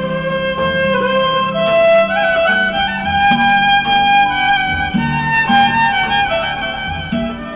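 Background music: a slow, sad-sounding song led by a violin melody with held notes over a steady bass line.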